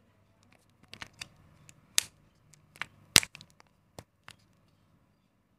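Plastic clicks and crackles as a wrapped Kinder Joy plastic egg capsule is handled and turned in the fingers, with two sharper clicks near the middle.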